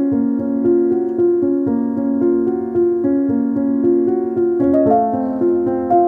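Background music: a gentle piano or electric-piano melody in steady notes, moving to a new chord near the end.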